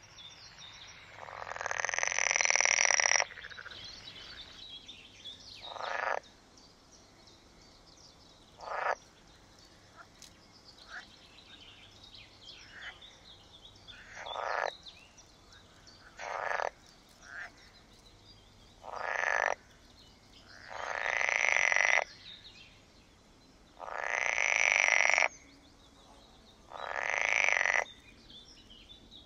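Green frogs (water frogs) croaking: loud rasping calls every few seconds, some drawn out for a second or two and others short, over a fainter background of more distant frog calls.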